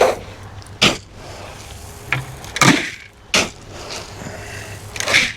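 Poultry feed being put down into feeding bowls: a handful of separate knocks and short rattling pours of feed against the bowls and scoop.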